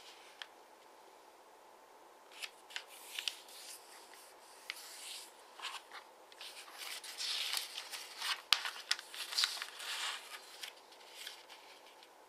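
Double-sided origami paper being handled and folded by hand: soft rustling, sliding and creasing of the sheet, starting about two seconds in and busiest in the second half. There is one sharp tap about eight and a half seconds in.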